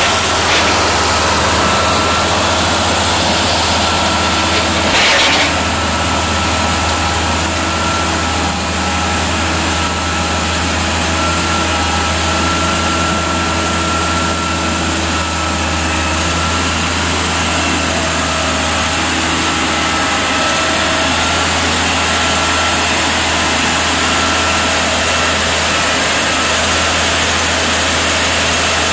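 Manitowoc 14000 crawler crane's diesel engine running steadily under a rock grapple, with a faint high whine that wavers in pitch. A single sharp knock comes about five seconds in.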